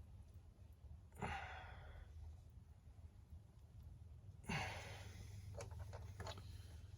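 A man sighing heavily twice, about a second in and again about four and a half seconds in, over a low steady hum, with a few faint clicks after the second sigh.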